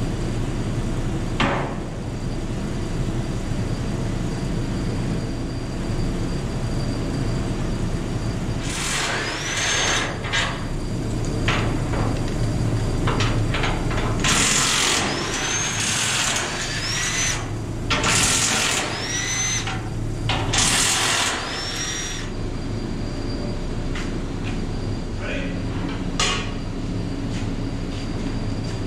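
Cordless drill running in about five short bursts, each whining up in pitch as it spins up, with a few sharp metal knocks before and after.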